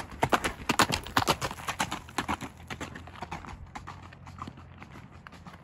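Horse's hooves striking a gravel track in a quick run of hoofbeats as it passes, growing fainter after about three seconds as it moves off.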